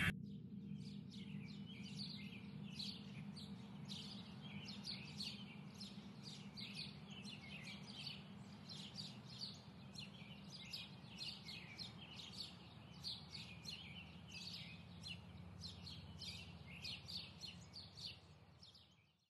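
Birds chirping in a busy, irregular chorus over a faint steady low rumble, fading out near the end.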